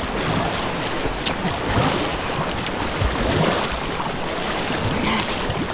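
Splashing and rushing river water as a kayak paddles and tows a swimmer who holds its grab handle and kicks, with irregular slaps of paddle strokes and kicks over a steady wash.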